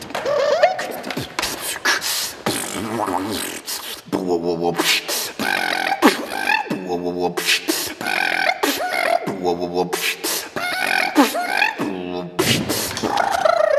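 Vocal beatboxing: a quick rhythm of mouth-made clicks and percussive hits mixed with pitched, hummed vocal tones, ending in a long downward vocal swoop.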